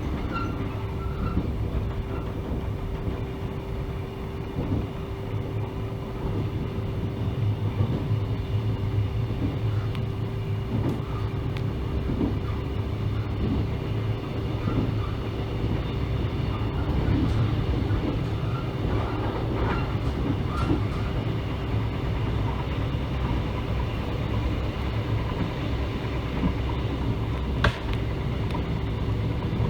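Mugunghwa-ho passenger train running on the rails: a steady low rumble with a constant hum and irregular wheel clicks over the track, with one sharper click near the end.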